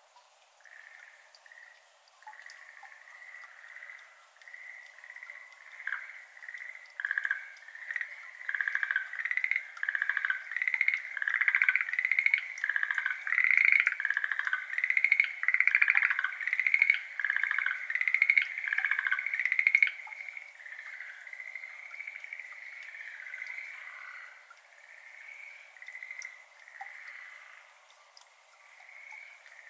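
A chorus of Schlegel's green tree frogs calling: short trilled calls, one after another. They build up a couple of seconds in, are loudest through the middle, then thin out and die away near the end. Faint water drips can be heard underneath.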